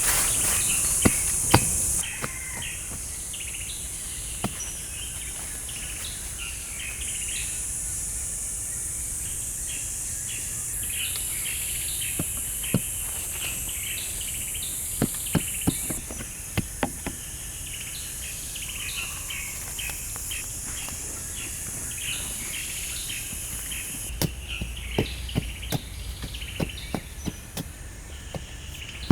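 Insects buzzing in a steady high hiss with birds chirping, and scattered sharp knocks or taps, a few coming in quick runs in the middle and near the end.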